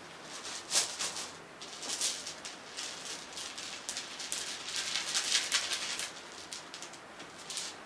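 Plastic bingo balls rattling and clicking inside a cloth bag as it is shaken and mixed by hand, with the fabric rustling. The rattling comes in irregular bursts, thickest about halfway through.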